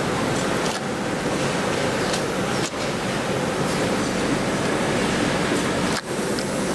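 Steady, loud rushing noise of screen-printing shop machinery, with no distinct strokes or rhythm. It drops out briefly twice.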